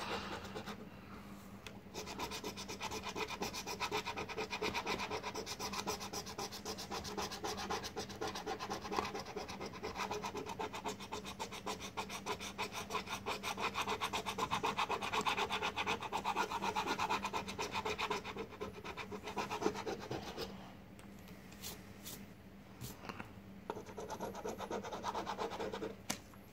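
A coin scratching the coating off a lottery scratch ticket: rapid back-and-forth rubbing strokes, easing off about twenty seconds in to a few lighter scrapes and taps.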